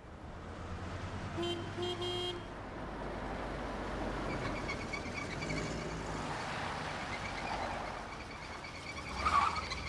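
Street traffic with car engines running steadily, and three short car horn toots about one and a half to two seconds in.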